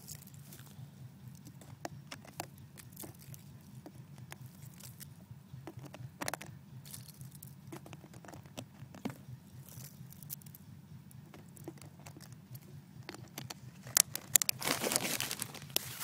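Crumpled aluminium foil balls crinkling and clicking as they are pushed into a plastic water bottle, in scattered faint crackles. Near the end comes a louder burst of rustling and knocking as the phone is handled close to its microphone.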